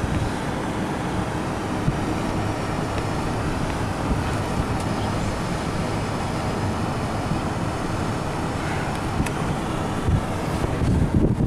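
Steady low rumble with wind buffeting the microphone, with a few stronger gusts near the end.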